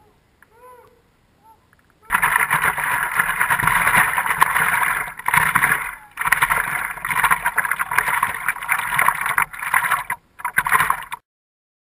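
Water splashing and rushing against the nose of a stand-up paddleboard, close to the microphone, as the board is paddled across open water. It starts suddenly about two seconds in, dips briefly a few times and cuts off abruptly near the end; before it come a few faint short calls.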